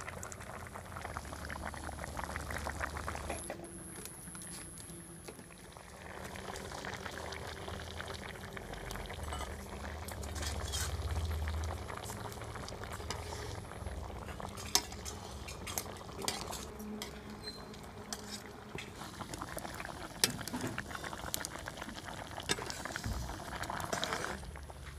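Rohu fish curry boiling in a steel kadai over a wood fire, bubbling steadily while a metal spatula stirs it. A few sharp clinks of the spatula against the pan come in the second half.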